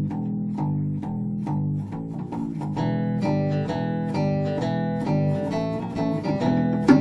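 A live band plays a song's opening: acoustic guitar and bass guitar in a steady rhythm with light percussion. More instruments come in with higher notes about three seconds in.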